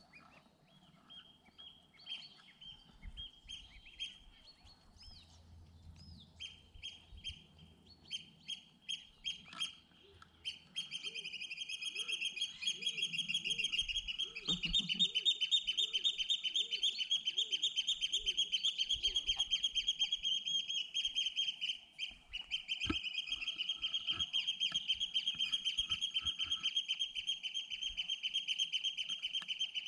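A group of goslings peeping: scattered high peeps at first, then from about a third of the way in a dense, unbroken chorus of rapid high peeps, with a short lull about two thirds of the way through.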